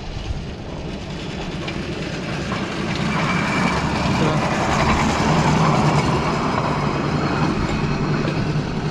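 Belmond Andean Explorer passenger train, hauled by a new diesel locomotive, running past with a steady engine hum and rolling rumble, growing louder over the first few seconds and easing off a little near the end.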